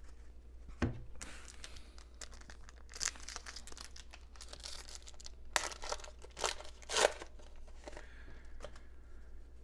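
A Topps foil trading-card pack wrapper being torn open and crinkled by hand: a run of crisp crackles and rips, loudest about six to seven seconds in.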